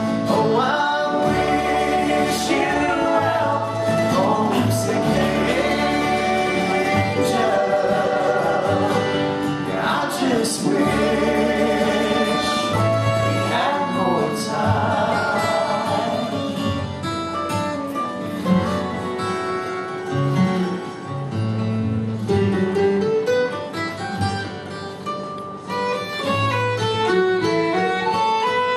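Acoustic bluegrass band playing an instrumental passage, led by fiddle over guitar, with a steady bass line underneath. Quick runs of short picked notes take over in the second half.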